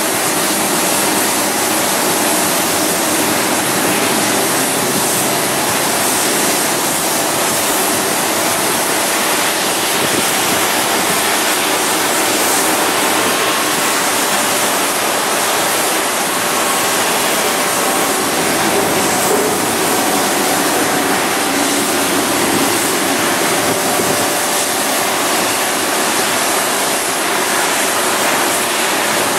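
Steady roar of airliner jet engines, with a faint steady whine.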